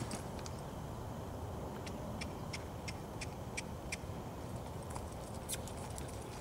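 Hoofbeats of a horse loping and turning in arena sand, faint, with a run of sharp clicks at about three a second in the middle, over a steady low rumble.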